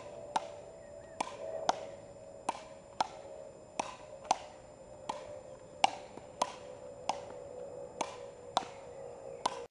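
Frescobol rally: a rubber ball struck back and forth between two wooden paddles, about fifteen sharp clacks at a steady rally pace of one every half second to second.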